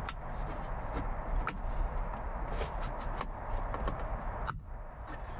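Plastic trim-removal tool working at a truck's centre-console trim panel: scattered light clicks and scrapes of plastic on plastic, with one sharper click near the end, over a steady low rumble.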